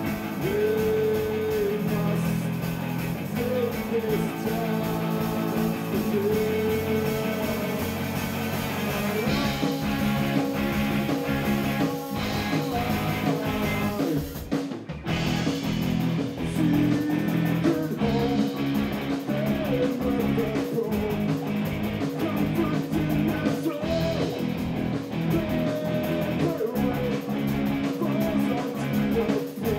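Live rock band playing a song: guitar and other instruments over a steady beat, with a brief break in the music about fifteen seconds in.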